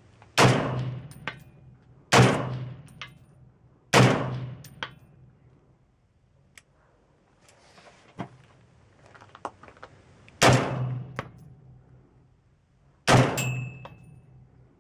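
Five shots from a .308 AR-10-type carbine with a 16-inch barrel and a Battle Comp muzzle brake, each a sharp report with a ringing tail. Three come about two seconds apart, then after a pause two more.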